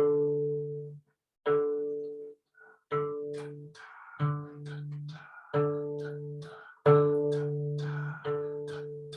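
Instrumental music opening a mantra: a plucked string instrument sounding a repeated chord about every second and a half, each one struck sharply and fading, with light high percussive accents joining about three seconds in.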